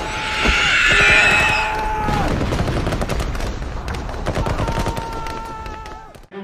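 Battle sound effects: dense, rapid gunfire crackling without pause, fading out near the end.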